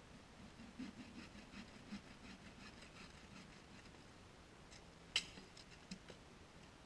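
Faint rustling and crackling of dry branches and twigs being handled and broken for firewood, with one sharp snap about five seconds in and a couple of smaller snaps just after.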